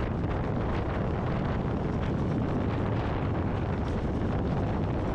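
Mini buggy's 196cc single-cylinder OHV engine running steadily under way, mixed with wind buffeting the microphone.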